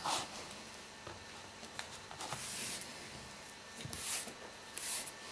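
Faint rustling and scraping of a flat lacing strand being drawn by hand under the strands of a knot, in a few short swishes with small ticks between them.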